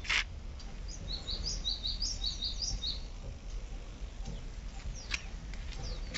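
A bird chirping: a quick run of short, high chirps in the first half, then a few fainter ones, over a steady low rumble.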